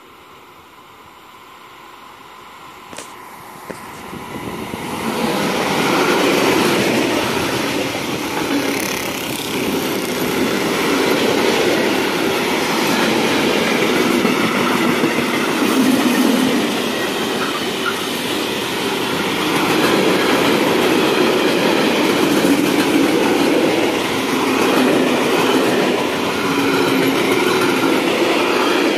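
Freight train approaching and then running past close by. The noise grows over the first five seconds as the locomotive nears, then holds loud and steady as the empty flat and stake wagons roll past on the rails.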